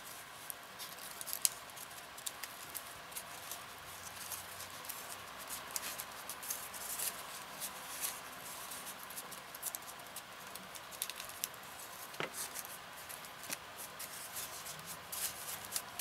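Aluminium foil crinkling as hands fold and press it tightly around a small block of styrofoam: faint, a close scatter of small crackles.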